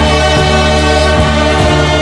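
Orchestral music with brass, held chords over a low bass and a few soft low hits.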